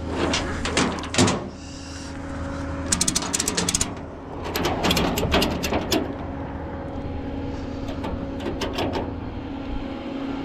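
Steady idle of an engine, likely the tow truck's, with bursts of clicking and clatter over it: a few knocks at the start, a fast run of clicks about three seconds in, a longer clatter around five seconds and a few ticks near the end.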